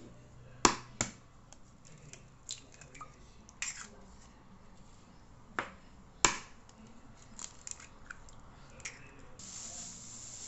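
Eggs cracked one after another against a white bowl, heard as a string of sharp cracks and taps, the loudest about a second in and again at about six seconds. Near the end, a steady hiss of granulated sugar pouring from a plastic bag into the bowl.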